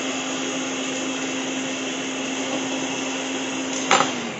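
Countertop blender running steadily at high speed, blending lemons in water with a steady hum. About four seconds in there is a sharp clack, and the motor starts to wind down as it is switched off.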